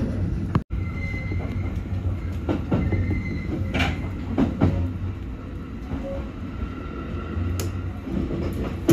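Electric commuter train on the Senseki Line, heard from inside the leading car: a steady running rumble with the wheels clacking over rail joints and points every second or so as it nears a station. There is a faint steady whine now and then, and the sound drops out for an instant just under a second in.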